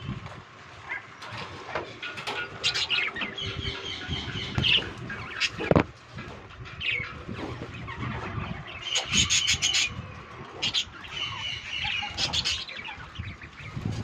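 A flock of budgerigars chirping and warbling, with high chattering calls coming in clusters, and a brief flutter of wings.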